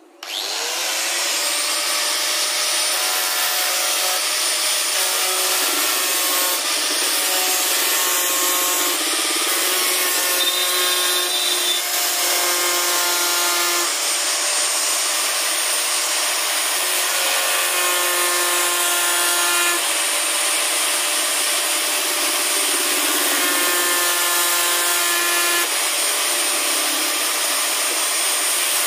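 Electric wood planer (randha machine) switched on, its motor spinning up with a brief rising whine, then running steadily with a loud grinding, cutting noise and faint shifting tones.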